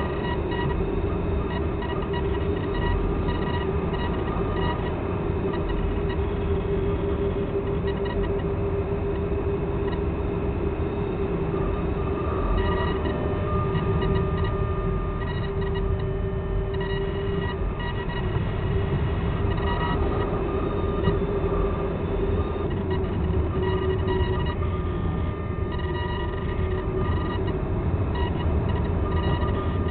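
Steady rush of air over a 1/3-scale Ka6E model glider in flight, heard from inside its canopy, with a steady hum running through it.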